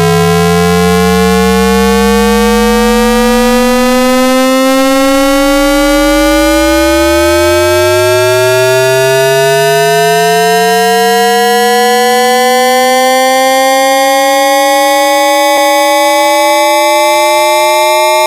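AM radio interference whistles: several loud, steady whistling tones slowly gliding upward in pitch, while a lower whistle sinks to a low drone and then climbs back up. This is the heterodyne whistling of an AM receiver tuned between stations.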